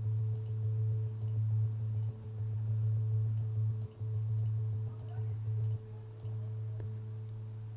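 Steady low sine-like tone from geoMusica's synthesizer, the musical translation of the rotating geometry, with fainter higher tones above it. Its level dips and swells a few times, and faint high ticks come in scattered through it.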